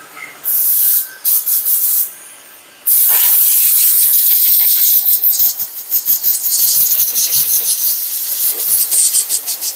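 MIG welding arc crackling and hissing as a bead is laid on the steel of an Eaton truck rear axle housing: two short starts in the first two seconds, then one long continuous run from about three seconds in.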